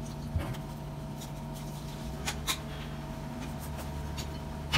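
Steady hum of kitchen equipment, with a few light clicks and taps as steak sandwich pieces are packed by hand into a wooden box lined with plastic wrap; the sharpest click comes at the very end.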